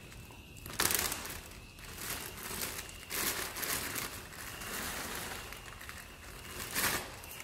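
Bag of dry cat food crinkling and rustling in irregular bursts as kibble is taken out, loudest about a second in and near the end.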